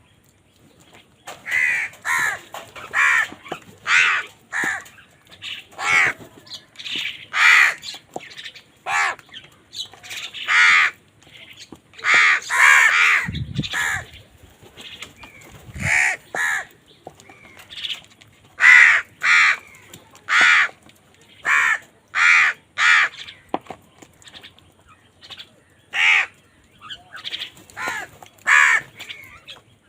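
Crows cawing over and over: a long irregular string of short, harsh caws, some in quick runs of two or three, with short gaps between.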